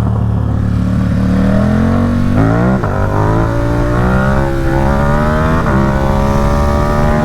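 Ducati Supersport 950 S's L-twin engine through a Competition Werkes race exhaust, accelerating hard and revving up through the gears. Two quick upshifts come about two and a half and five and a half seconds in, each a brief drop in pitch before it climbs again.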